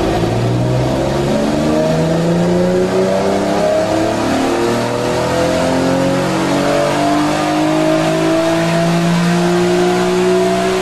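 Infiniti V6 engine with an AFE Takeda air intake, heard from inside the cabin while accelerating in one gear. The revs climb steadily from about 2,000 toward 7,500 rpm, so the engine note rises smoothly in pitch throughout.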